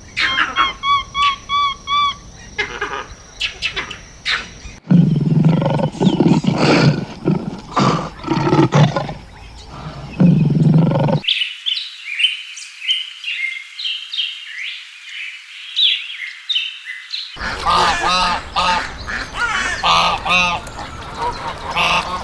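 Animal and bird calls in several abruptly cut segments: short repeated chirping calls, then lower pulsed calls, then higher chirping, then repeated calls again.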